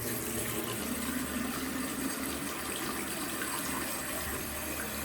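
Tap running steadily, water flowing through the newly teed-in supply pipework as it is tested for leaks.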